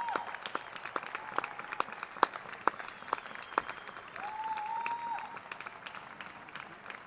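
Distant crowd applauding with scattered claps, and one long whistle from the audience about four seconds in.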